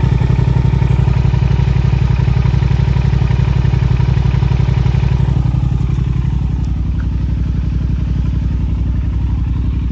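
Yamaha TDM900's parallel-twin engine idling steadily through aftermarket exhaust pipes with a deep rumble, running smoothly. It gets a little quieter about halfway through.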